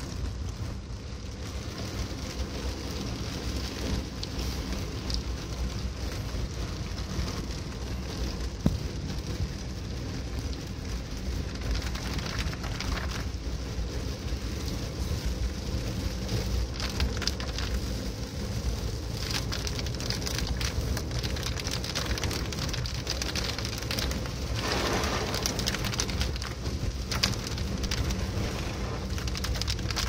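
Heavy rain on a moving car, heard from inside the cabin, over the low rumble of the car driving and its tyres hissing through water on the road. A louder rush of water swells briefly about 25 seconds in.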